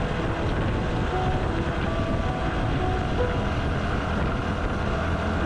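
Motorcycle on the move: a steady low rumble of engine and riding noise.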